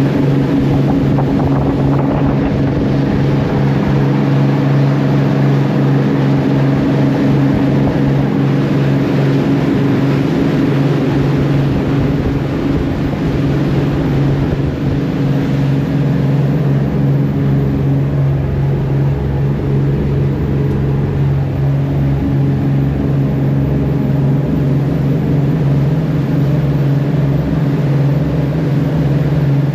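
A fishing boat's engine running at a steady speed, a constant low drone with a fast pulse in it.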